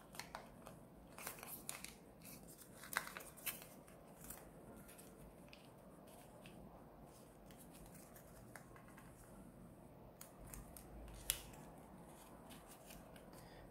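Faint crackles and taps of origami paper being folded and creased by hand against a tabletop, most of them in the first few seconds, with one sharper click about eleven seconds in.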